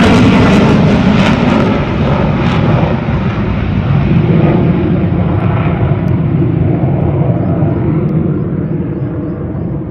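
Military fighter jet's engine noise as it climbs away steeply, loud and crackling in the first couple of seconds, then slowly fading and growing duller as the jet recedes.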